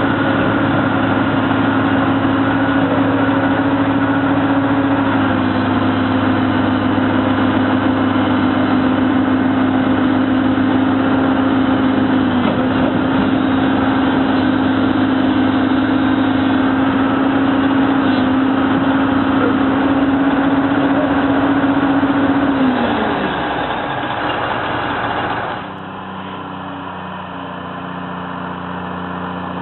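Diesel engine of a tracked John Deere log loader running close by at steady high revs, then winding down with a falling pitch about 23 seconds in. After a sudden cut, a fainter, steady engine drone from the truck hauling it in the distance.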